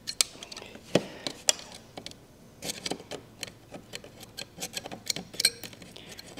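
Thin metal file scraping and clicking against a smoke detector's corroded battery terminals in short, irregular strokes, filing the corrosion off the contacts.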